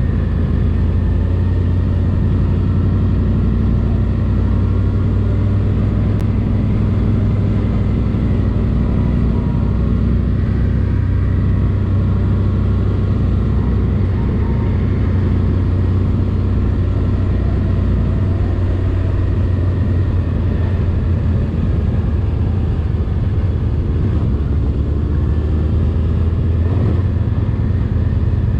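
Motorcycle engine running steadily at cruising speed, a low steady drone with small shifts in pitch past the middle.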